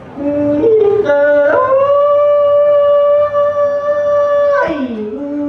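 A man's voice singing Hmong kwv txhiaj (sung poetry): a few short stepped notes, then a rise to one long high note held for about three seconds, which falls away in a downward glide near the end.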